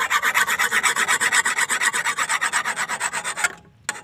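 Hand file rasping rapidly back and forth along the edge of a steel toka chopper blade, about eight strokes a second, putting an edge back on the dull blade. The filing stops briefly near the end, then starts again.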